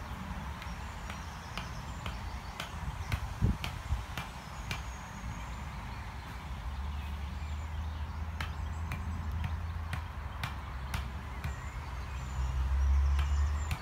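Light hatchet strokes on wood, sharp knocks coming about two a second, one louder than the rest about three and a half seconds in, over a steady low rumble.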